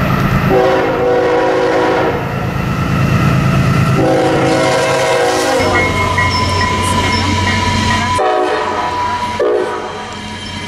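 Diesel locomotive horns sounding several chord blasts, two longer ones in the first half and two short ones near the end, over a diesel engine running.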